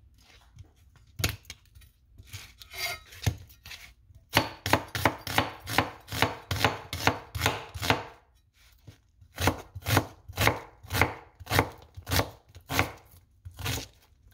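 Chef's knife chopping an onion on a plastic cutting board: a few single cuts, then a fast run of knocks about four a second, a short pause, and a second, slower run of knocks.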